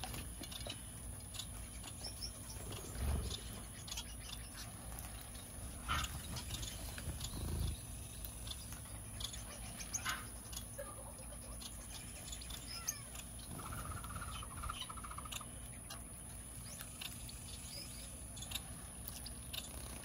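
Mixed aviary finches and small parakeets calling: sparse, short high chirps scattered throughout, with a brief fluttering trill a little past halfway. A steady high-pitched whine runs underneath.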